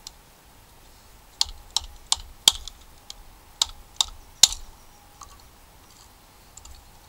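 Wooden baton striking the spine of a Condor Bushlore knife, driving the blade down through a piece of firewood to split it: seven sharp knocks, four in quick succession and then three more after a short pause.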